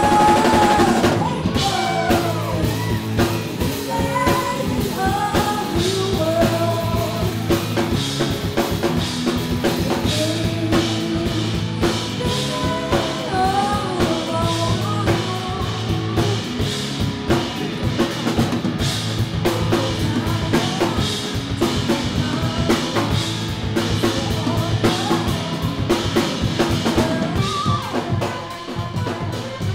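Live rock-pop band: a singer's voice over a steady drum-kit beat, bass, electric guitar and keyboard. The whole band comes in with a loud hit at the start.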